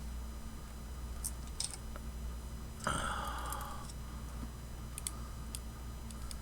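Light scattered clicks and ticks over a steady low electrical hum, with a short hiss about three seconds in.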